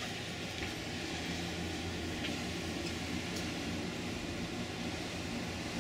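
Steady low drone of ship engines under a hiss of wind and rushing water, with a few faint ticks.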